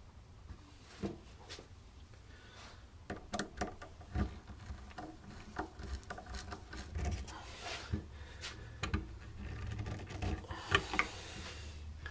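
A stainless steel wood screw being driven by hand screwdriver through a wooden decoy head into the body, with irregular clicks, creaks and scraping of metal on wood and knocks as the head is handled, busiest in the second half.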